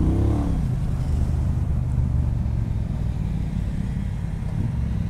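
2018 Triumph Bonneville Speedmaster's 1200cc parallel-twin engine running steadily under way, heard from the rider's seat, with a brief rise and fall in pitch at the start.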